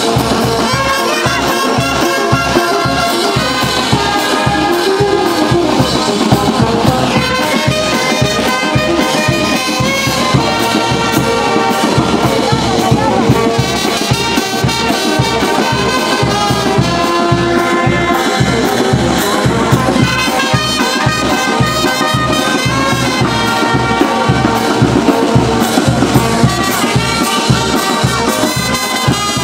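Brass band with trumpets and trombones playing a dance tune over a steady drum beat.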